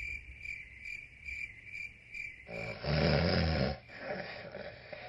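Insect chirping in a steady pulse, about two chirps a second. Halfway through it gives way to a louder, noisy rumble that swells for about a second and then fades.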